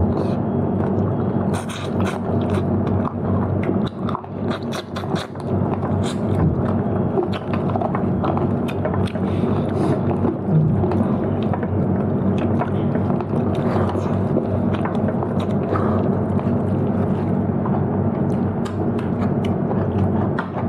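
A person eating close to the microphone: chewing and biting into meat curry, with scattered clicks and scrapes. A steady low hum runs underneath.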